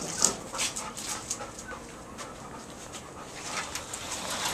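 Weimaraner panting fast, about three breaths a second, winded from chasing a ball.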